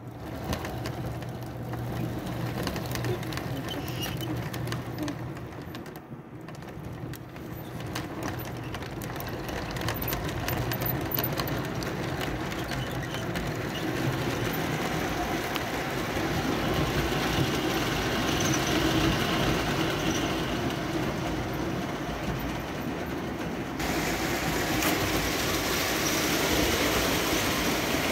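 Electric O-gauge model train running on tubular three-rail track: a steady rolling rumble with many small clicks as the wheels cross the rail joints, a hum in the first few seconds, growing louder as the train comes closer.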